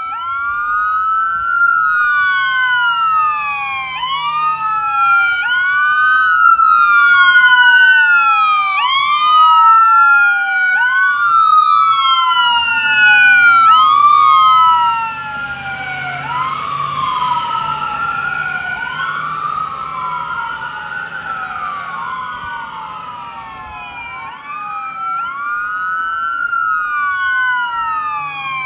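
Ambulance sirens on a slow wail, each cycle rising then falling about every two and a half seconds. The siren grows loud as the ambulance passes and drops off sharply about halfway through. Then a second siren overlaps it along with the drone of a vehicle engine, and the siren swells again near the end as another unit approaches.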